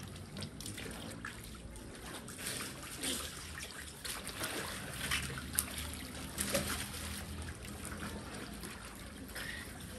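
Swimming-pool water lapping and trickling as swimmers move through it, with small irregular splashes.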